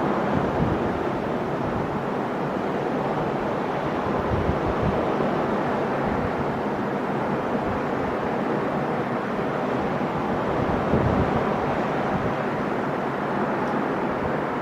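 Ocean surf washing steadily onto the shore, a continuous rushing noise, with low wind buffets on the microphone now and then.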